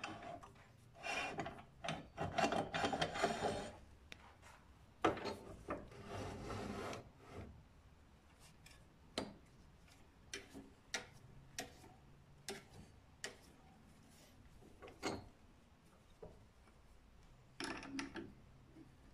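Wood lathe parts being moved by hand: two stretches of metal scraping and rubbing as the tool rest and tailstock with its drill chuck are slid along the lathe bed, then scattered light clicks and knocks, with a short scrape near the end. The lathe motor is not running.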